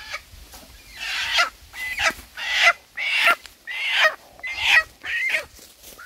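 A brown hen squawking in distress while held by its wings: a series of loud, harsh squawks, roughly one a second, that stop shortly before the end.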